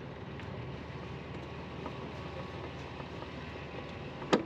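Powerboat engine running steadily at idle during slow docking manoeuvres, with a single sharp knock near the end.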